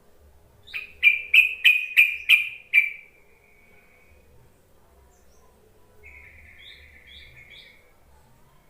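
Yellow-vented bulbul (trucukan) calling: a quick run of about six loud, bubbly notes, then after a pause a softer, longer chattering phrase with a few short higher notes.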